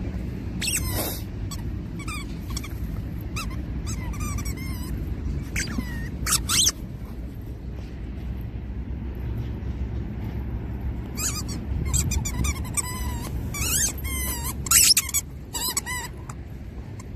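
Labradoodle whining in short, high, squeaky cries that bend in pitch, over and over in clusters, worked up with excitement while digging a hole in sand. A steady low rumble runs underneath.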